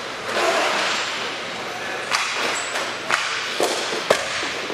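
Hockey sticks and the puck clacking on the floor of an indoor rink: a burst of scraping noise near the start, then four sharp cracks in the second half, with a reverberant hall behind them.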